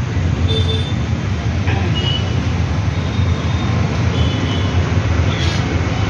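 Motor vehicle engine noise: a steady, loud low rumble, with a few faint short high squeaks over it.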